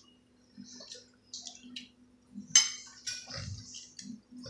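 Metal spoons scraping and clinking against plates while eating, with one sharp clink about two and a half seconds in and a low thump about a second later. A faint steady hum runs underneath.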